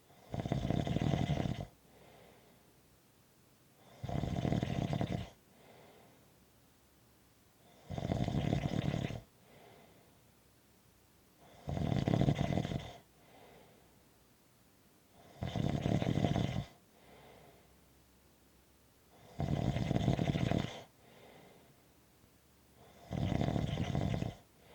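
Steady, regular snoring: seven loud snores about every four seconds, each a little over a second long, with a much softer breath between each.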